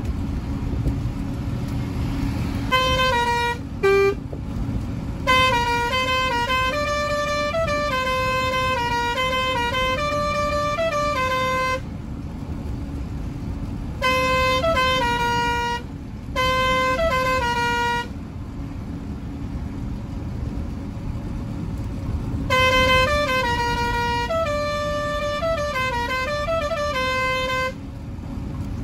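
A truck's musical horn playing short tunes, stepping between a few notes, in four phrases with pauses between them. Under it the truck's engine and road noise run steadily.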